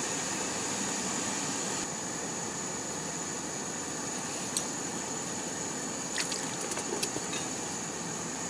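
Steady hiss with a thin high whine, broken by a faint click about halfway through and a few light taps a little later.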